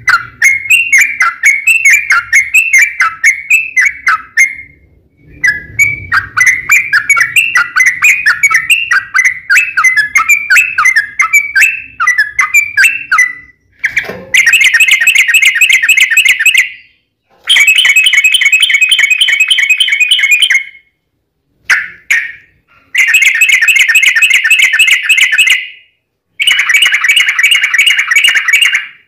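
Yellow-vented bulbul (trucukan) song: quick bubbly chattering phrases for the first half, then long, fast rattling trills ('ropel panjang') in bursts of two to three seconds with short pauses between them.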